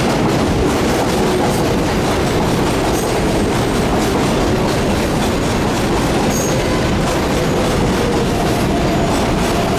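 New York City subway train on the 7 line running past, a steady rumble and clatter of wheels on the rails. A faint steady tone comes in near the end.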